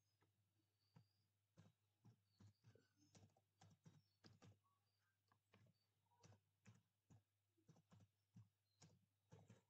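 Faint typing on a computer keyboard: irregular, quick keystrokes starting about a second in, over a faint steady low hum.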